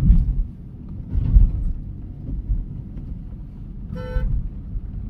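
Low road and engine rumble from a moving car in city traffic, swelling and easing, with a short vehicle horn toot about four seconds in.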